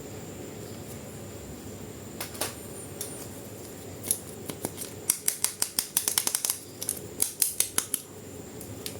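Sharp clicks and snips in a quick run, thickest between about five and seven seconds in, as toy packaging is cut open with scissors, over low room tone.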